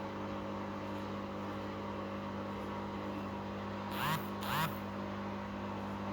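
Washing machine on its spin cycle, a steady hum at constant drum speed. About four seconds in, two short high chirps half a second apart sound over it.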